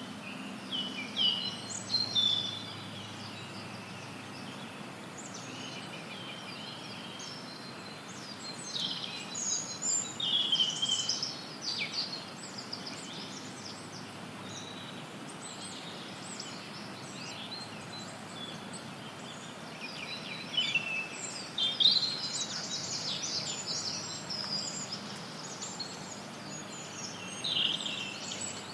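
Forest songbirds chirping and trilling in short clusters of high calls over a steady hiss of white noise. The bird calls come in bursts about a second in, around 9 to 12 seconds, around 20 to 24 seconds and again near the end.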